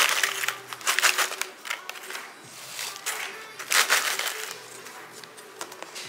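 Plastic chip bag crinkling as potato chips are shaken out of it into a plastic lunch box, the chips rattling and crunching. It comes in bursts, in the first second and again about three seconds in.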